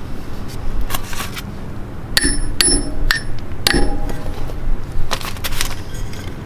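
A metal pipe knocking against a trailer wheel hub: four sharp metallic clinks with a short ring, between about two and four seconds in, with scraping and rubbing before and after.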